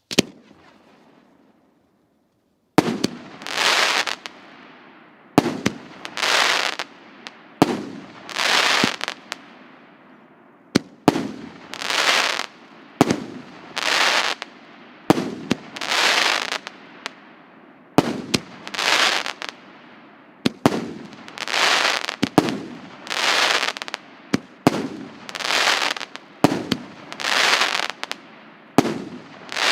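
Multi-shot firework cake (battery of salutes) firing shot after shot, about one every two seconds: each shot is a sharp launch thump followed a moment later by a noisy burst in the air. A single short pop comes at the very start, and the regular shots begin about three seconds in.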